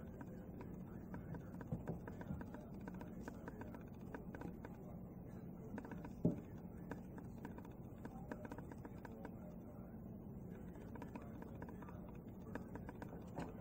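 Crows tapping on a skylight and roof: an irregular patter of light taps, with one louder knock about six seconds in, over a steady low hum.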